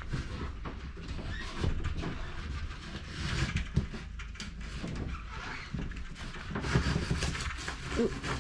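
Irregular scraping, rustling and light knocking of a refrigerant line set being pushed through a wall opening and handled.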